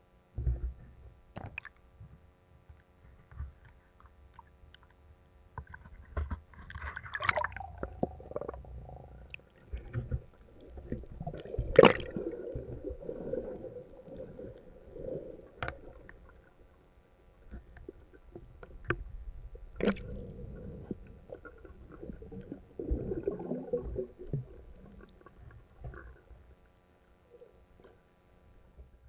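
Muffled underwater sound picked up through an action camera's waterproof housing: water swishing and gurgling as a snorkeler swims, with several sharp clicks, the loudest about twelve seconds in.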